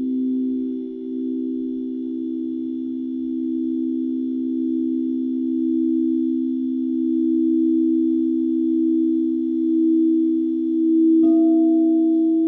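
Singing bowls sounding together in a steady, low, sustained chord that swells and pulses slowly. About eleven seconds in, another bowl is struck, adding a higher ringing tone.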